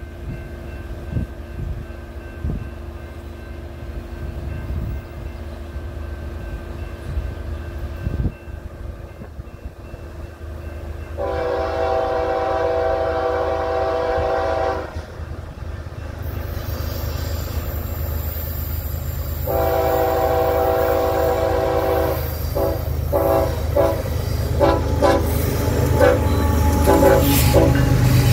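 BNSF ES44AC diesel locomotive's horn blowing for a grade crossing: two long blasts, then a run of shorter blasts, with the horn sounding again as the locomotive draws level near the end. Under it a low locomotive rumble and rail noise grow steadily louder as the train approaches.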